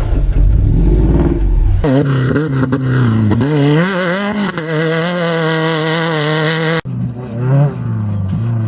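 Off-road race vehicle engines running hard, in three back-to-back clips that cut abruptly about two seconds in and again near seven seconds. In the middle clip the engine's pitch climbs and dips as it revs, then holds high and steady.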